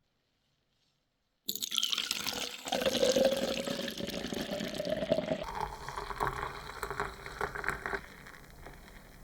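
Liquid being poured into a container, starting suddenly after a second and a half of near silence. About five and a half seconds in it gives way to quieter splashing and dripping.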